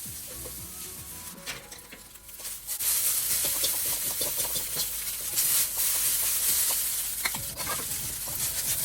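Egg noodles sizzling in hot olive oil in a wok, stirred and tossed with a utensil that scrapes and knocks against the pan. The sizzle grows louder about three seconds in.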